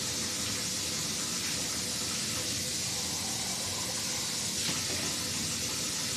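Warm tap water running from a kitchen faucet, a steady, even hiss.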